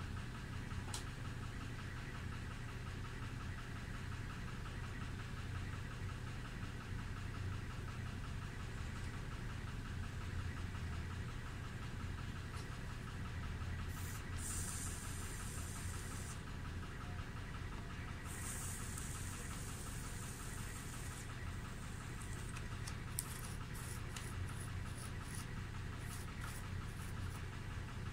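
A steady low mechanical hum, with several short high hissing or scraping noises in the second half.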